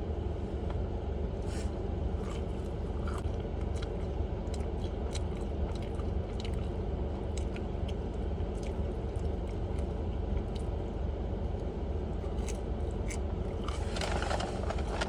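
A person chewing a sauce-dipped chicken nugget, with small wet mouth clicks scattered throughout, over a steady low rumble.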